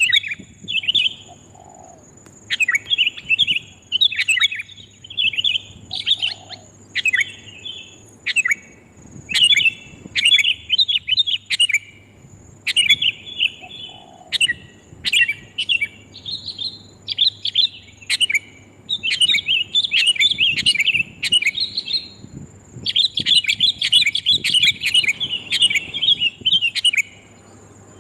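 Sooty-headed bulbuls calling loud and clear: short, bubbly chirping phrases repeat every second or so, then crowd into an almost unbroken chatter near the end.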